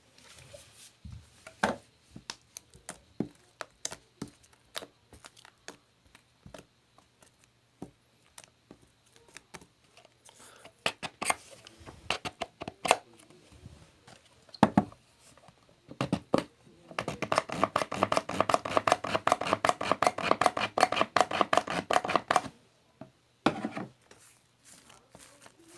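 Close-up handling sounds: scattered clicks and taps, then about five seconds of rapid, dense clicking that is the loudest part, and a few more taps near the end.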